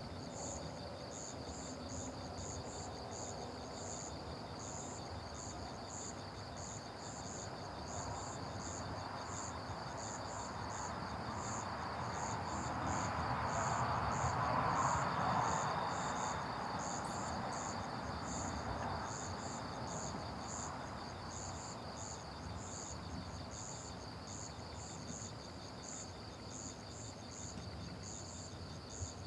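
Crickets chirping steadily in a continuous high, rapidly pulsing chorus. Partway through, a broad rushing sound swells up, peaks around the middle and fades away over several seconds.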